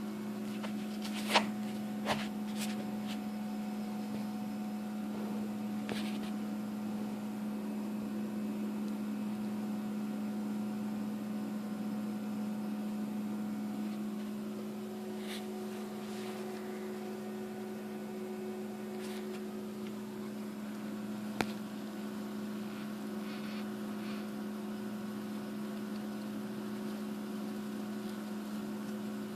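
Steady electrical hum with a few sharp clicks and faint scratches over it.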